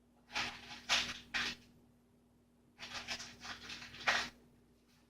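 Two spells of short rustling and scraping noises, about a second long each, from small hardware and parts being handled during assembly.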